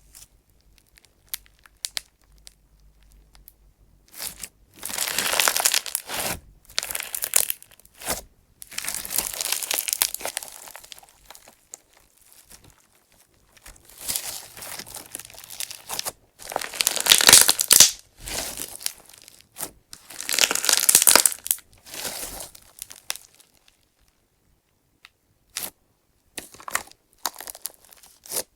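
Clear slime packed with small clay chips being squeezed and stretched by hand: crunchy, crackly squishing where air bubbles pop and the chips grind against each other. It comes in several bursts of a few seconds with short pauses between them, then thins to a few scattered clicks near the end.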